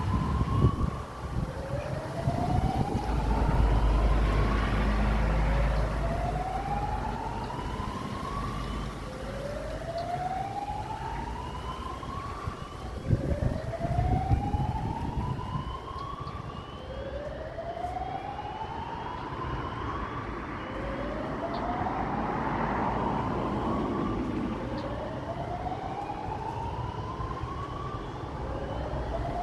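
Fire alarm sounder going off, sending out a tone that sweeps upward over two to three seconds and then starts again, about every four seconds. A low rumble rises and falls underneath.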